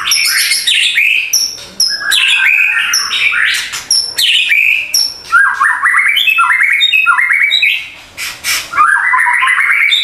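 White-rumped shama (murai batu) singing a loud, varied song of quick whistled notes, chirps and falling sweeps. From about five seconds in it adds repeated runs of rapid rattling trills.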